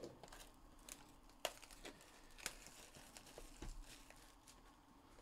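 Near silence with a handful of faint clicks and light crinkling from hands handling a cardboard trading-card hobby box.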